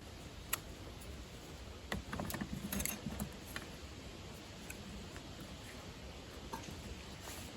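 Scattered light clicks and taps of camping gear being handled during setup, with a short clatter of knocks about two to three seconds in.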